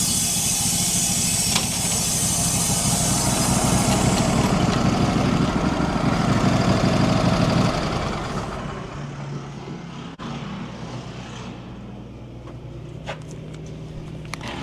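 Wood-Mizer LT15 portable band sawmill running and cutting cherry: a loud, steady run with a high hiss of blade in wood. About eight seconds in, the cut ends and the machine drops to a quieter steady hum, with a few sharp clicks near the end.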